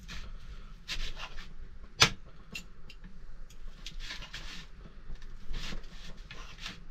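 Table knife and fork cutting boiled chicken into small pieces on a plate: soft scraping and light clicks of cutlery against the plate, with one sharper click about two seconds in.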